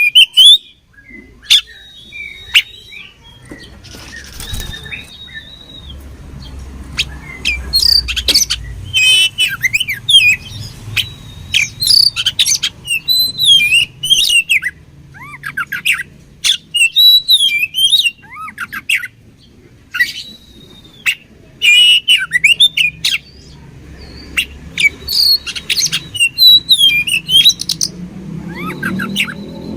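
Oriental magpie-robin (kacer) singing: fast, varied bursts of chattering notes and sharp clicks, broken by a few long level whistles.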